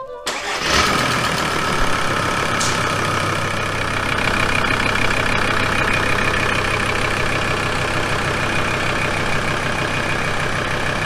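Volkswagen LT35 TDI diesel engine idling steadily with an even, regular beat.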